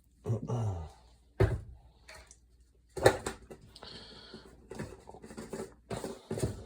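Knocks and clatter of kitchenware being handled on a counter, with sharp knocks about a second and a half and three seconds in. A short sound that falls in pitch comes near the start.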